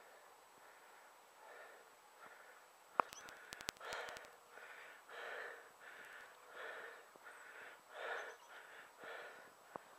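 A runner breathing hard in a quick, regular rhythm, about one breath every half second or so, louder in the second half. A few sharp clicks about three seconds in.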